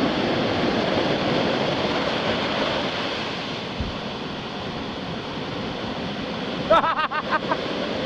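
Ocean surf breaking: a steady rushing hiss of whitewater that eases a little about halfway through.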